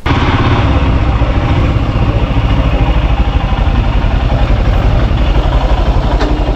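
Motorcycle engine running, loud and steady throughout.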